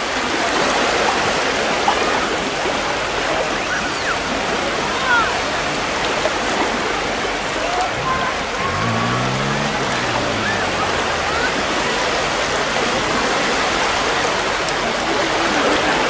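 A steady, even rushing noise, with faint short chirps over it and a low hum that falls in pitch about nine seconds in.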